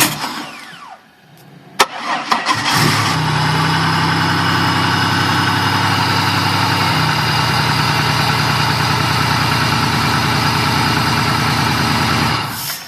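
2000 Pontiac Grand Prix GTP's supercharged 3.8-litre V6 cranking and catching about two seconds in, then running steadily for about nine seconds before being switched off near the end. The owner suspects the idle of a vacuum leak.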